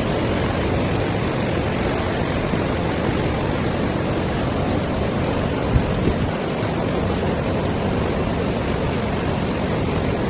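Floodwater rushing, a steady even roar of water noise, with one brief knock about six seconds in.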